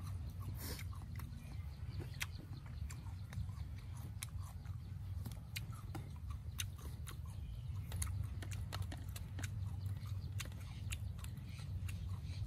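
A person chewing and biting crisp raw fruit, with many irregular crunching clicks over a steady low rumble.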